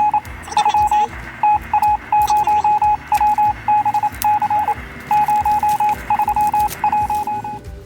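Rapid electronic beeps at a single steady pitch, coming in irregular runs of short and longer tones with brief gaps, stopping shortly before the end.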